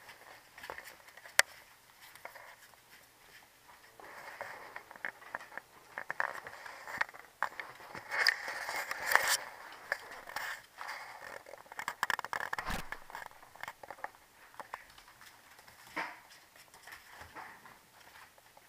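Puppies scuffling and play-wrestling on a floor: irregular scrapes, pattering and small clicks, with one sharp click about a second and a half in and a busier stretch in the middle.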